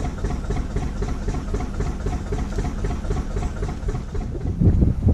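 Narrowboat engine running steadily at cruising speed, with an even beat of about four to five pulses a second. Near the end a louder low rumble swells briefly.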